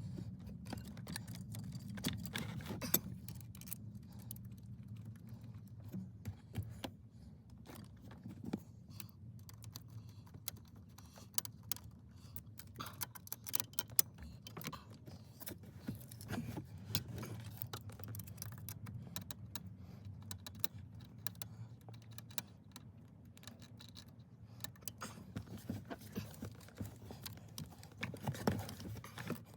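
Scattered small clicks and light metallic rattles of tools and parts being handled, over a steady low hum.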